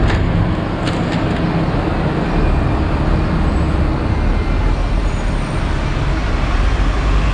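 City traffic at a busy intersection: a Metro city bus turning through the junction with a van and a car passing, a steady rumble of engines and tyres that swells a couple of seconds in and again near the end.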